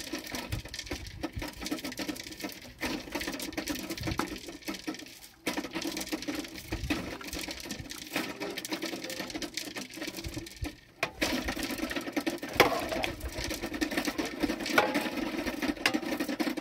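Small clicks and scrapes of a knife cutting food over a metal tray, over a steady low hum; the sound drops out abruptly twice.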